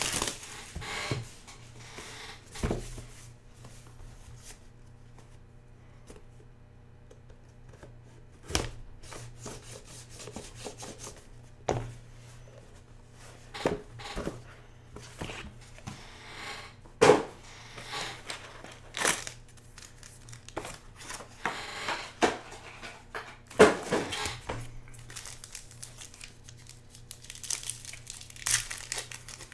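Wrappers of Game of Thrones Valyrian Steel trading card packs crinkling and tearing as they are handled and torn open by hand, in scattered sharp crackles with quieter stretches between.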